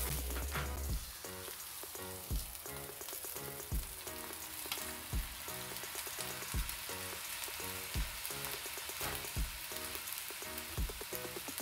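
Rice, carrots and onions sizzling as they fry in peanut oil in a wok while they are stirred with a spatula. Background music with a steady beat plays under it, with a low thump about every second and a half.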